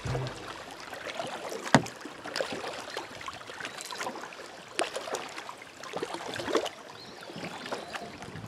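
Kayak paddling: the paddle blades dipping and splashing in the water at an irregular pace, with drips and a sharp knock a little under two seconds in.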